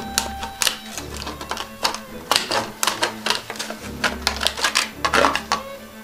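Rapid, irregular sharp clicks and snaps, densest in the second half, from a sheet of plastic beehive foundation being cut, over background music.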